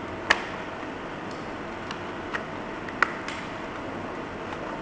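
A few sharp, irregularly spaced plastic clicks as a talking alarm clock's case is handled and its button pressed, the loudest about a third of a second in and about three seconds in, over a steady hiss.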